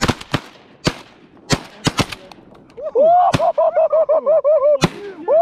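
A volley of shotgun fire from several hunters, about eight shots spread unevenly over some five seconds. From about three seconds in, a loud, rapid string of repeated pitched calls runs under the last shots.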